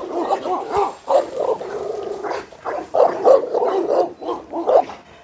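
American Bully dogs barking repeatedly, short barks coming in quick succession with a few brief gaps.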